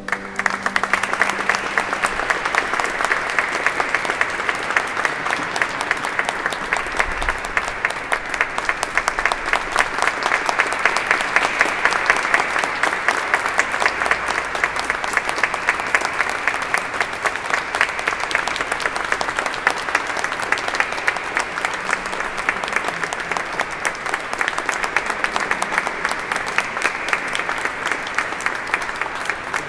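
Audience applauding steadily at the end of a chamber music piece; the clapping starts as the music stops.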